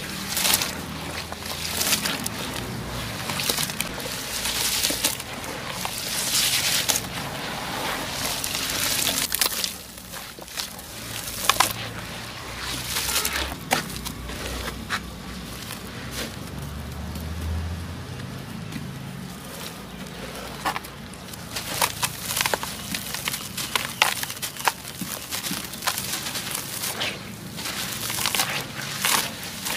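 Soft, pale, chalk-like blocks being crushed and crumbling into water, making crunching and crackling with sharp little snaps. It is busy at first, thins out in the middle, then picks up again.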